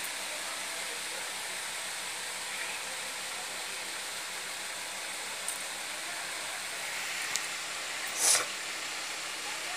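Steady background hiss with a few faint clicks, and one brief, sharp rustle or knock about eight seconds in.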